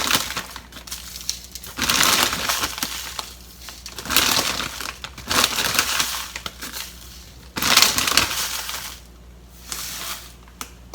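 Dry breadcrumbs being added to a mixing bowl, in several crisp rustling bursts of about a second each.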